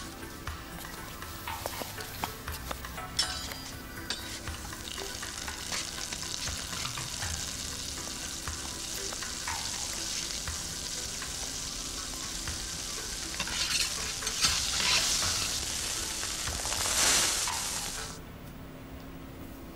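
Burger patty sizzling on a flat-top griddle, a steady frying hiss with scattered clicks and scrapes from a metal spatula. The sizzle swells louder a few seconds before the end, then cuts off suddenly.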